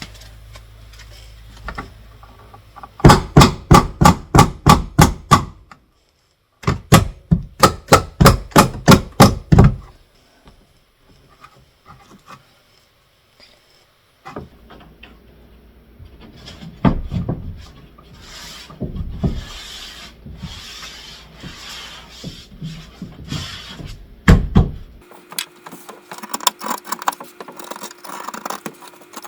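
Two runs of quick hammer blows on a wall, about ten strikes each at roughly four a second, followed by scattered knocks and scraping. A steady hum starts near the end.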